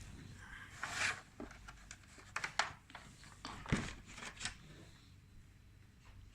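Handling noises as a USB cable and plug are fitted into a charger: a brief rustle, then a quick run of sharp plastic clicks and one louder knock.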